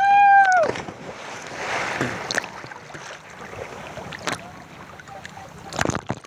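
A person's shout as they leap into the sea, then a splash about a second and a half later as they hit the water. After that, choppy waves slosh around a camera held at the water surface.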